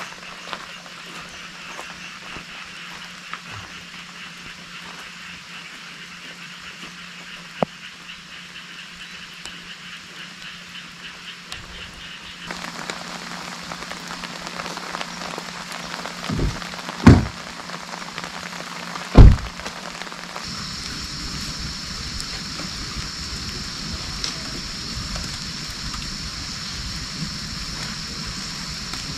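Steady rain falling, with a few low thumps about halfway through, two of them loud.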